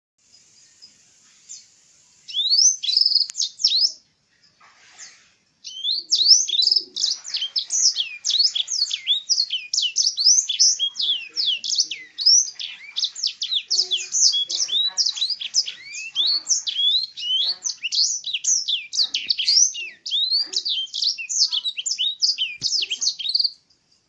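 Caged sanger songbird singing a fast twittering song of quick down-slurred high notes, a song filled in ("isian") with black-throated canary phrases. A short burst comes about two seconds in, then a brief pause, then unbroken song until just before the end.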